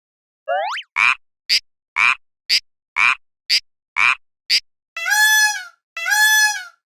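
Cartoon railroad-crossing warning sound effect. A short rising chirp is followed by quick blips that alternate between a lower and a higher pitch about twice a second, then by two longer horn-like tones near the end.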